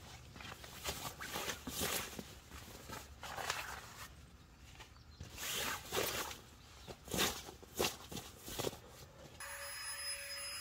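Nylon fabric rustling and swishing as a sleeping pad is pushed into a mesh tent and spread out on its floor, in several irregular strokes. Near the end the rustling stops, leaving a faint steady hum.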